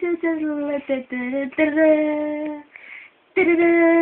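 A young voice singing a wordless tune in long held notes, with a short break about three seconds in.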